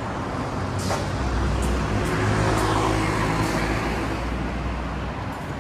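A road vehicle passing close by, its engine hum and tyre noise swelling to a peak about two to three seconds in, then fading.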